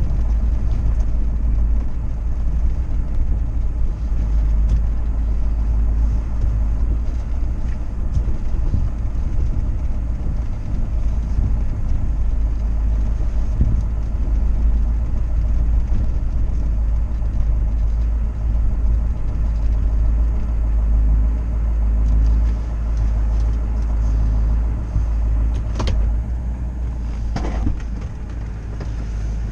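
Low, steady rumble of a truck's engine heard inside the cab as it backs slowly with a boat trailer in tow. Two short clicks come near the end.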